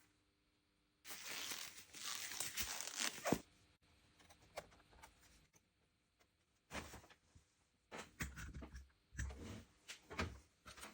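A ripping, tearing noise for about two seconds, followed by scattered rustles and light taps of handling.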